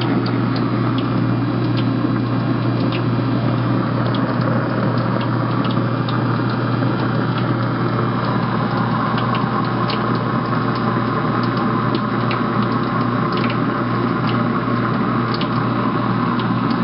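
Kitchen sink garbage disposal running steadily with a constant motor hum, churning dish soap and a trickle of hot water to clean itself, with scattered light clicks.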